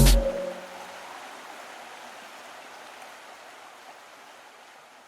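A soft, steady rushing noise, like running water, fades slowly away after electronic background music stops abruptly in the first half second.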